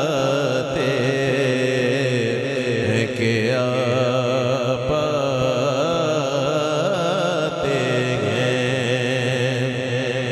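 Naat recitation: a man's amplified voice singing long, drawn-out notes that waver and slide in pitch, over a steady low drone.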